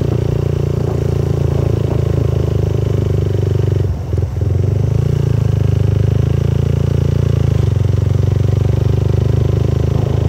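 Motorcycle engine running steadily while riding, heard from on board, with a brief dip in the sound about four seconds in.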